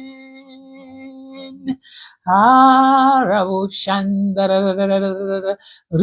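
A solo voice singing long held notes without clear words: the last note of a worship line fades out, then after a brief pause two more sustained notes follow, the first sliding down at its end.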